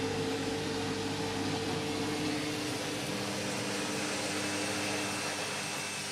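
Overloaded Candy washing machine in its final spin: a steady motor whine and drum hum, with the main whine tone shifting lower in pitch about halfway through.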